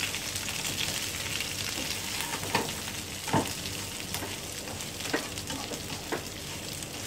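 Oil sizzling in a wok as a slotted spatula stirs fried chicken pieces with crisp spinach and chilli flakes, with a few short knocks and scrapes of the spatula against the pan.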